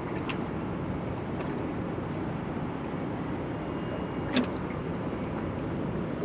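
Steady rush of wind and water around a small fishing boat drifting on the harbour, with scattered light clicks and one sharp knock about four seconds in.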